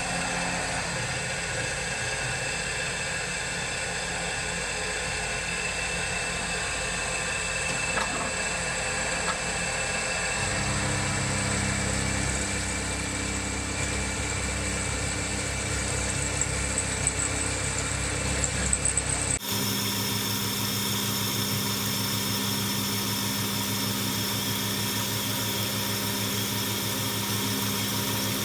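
DIY CNC machine running while it machines a small aluminium part, a steady mechanical whine and hum. The low hum grows stronger about a third of the way in, a few sharp ticks come near the middle, and about two-thirds through the sound switches suddenly to a brighter, higher whine.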